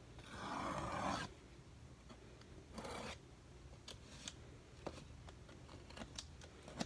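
A cardboard box being handled and opened: a faint rasping scrape about a second long at the start, a shorter scrape near the middle, and a few light clicks and taps.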